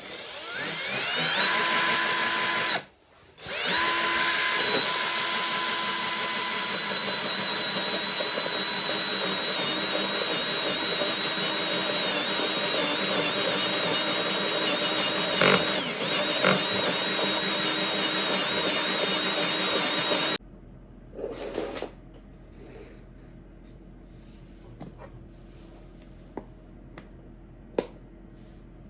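Electric power tool motor spinning up to a steady high whine, stopping briefly, then running again for about seventeen seconds with its pitch sagging a little as it works, before cutting off abruptly. Light taps and clicks follow.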